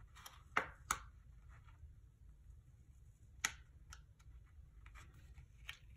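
Metal tweezers handling a paper sticker on a planner page: a few scattered light clicks, the sharpest about half a second in, near one second and around three and a half seconds in, over a faint low hum.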